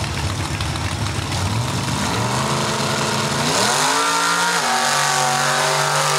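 Mega truck's engine revving and launching down a mud bog track: the revs climb steeply about three and a half seconds in, dip about a second later, then hold high under throttle.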